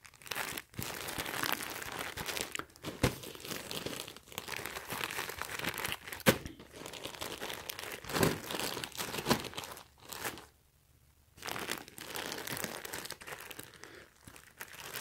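Clear plastic packaging crinkling and rustling as plastic-wrapped packs are handled and laid out, with a few sharp crackles and a brief pause about two-thirds of the way through.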